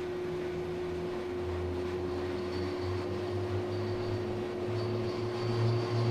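Steady mechanical hum inside a moving aerial tramway cabin, with a constant mid-pitched tone over a low drone that grows a little louder toward the end.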